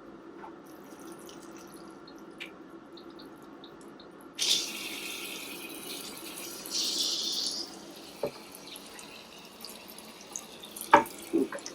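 Water from a handheld shower hose starts running suddenly about four seconds in, swells briefly, then eases to a lower flow. A few knocks near the end.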